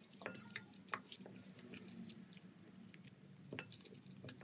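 Gloved hand kneading a wet, yogurt-based spice marinade into raw chicken pieces in a bowl: faint wet squishing with scattered small clicks and a few sharper ticks.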